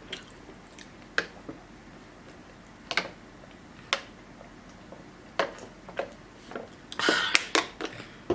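Close-miked mouth sounds of eating: sharp, wet clicks and smacks every second or so while chewing, with a short cluster of them near the end.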